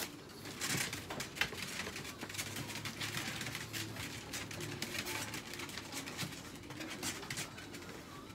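Rustling, scraping and light clattering from someone handling a dog's toilet tray inside a wire dog crate. It is a quick, irregular run of small noises that starts about half a second in.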